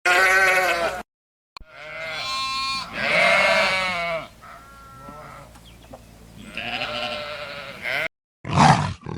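Several different animal calls spliced one after another with dead-silent gaps between them. A pitched call lasts about a second, a longer stretch of drawn-out calls runs from about two to eight seconds in, and a louder, rough call starts near the end.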